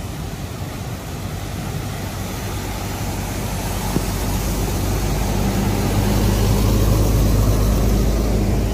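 Coach bus driving through floodwater close by: its engine grows louder over the first several seconds, peaking toward the end, over a steady hiss of water sprayed up by the tyres.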